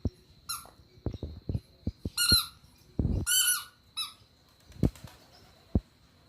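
A young pet's high-pitched squeaky cries, four short ones spread over a few seconds, with soft knocks and clicks of movement in between.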